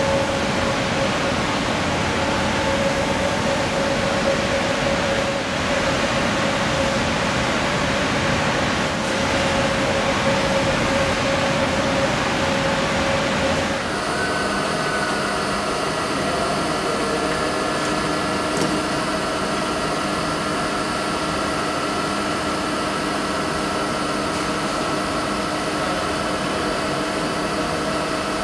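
Butler planer milling machine running, a steady mechanical hum and whine. About halfway through the sound changes abruptly, with one held tone dropping out and several different tones taking its place.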